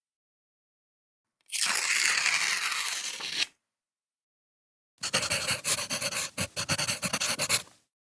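Two separate stock sound-effect clips separated by dead silence. The first is a two-second noisy rush or scrape. The second, about five seconds in, is nearly three seconds of rapid, uneven crackling clicks that cut off sharply.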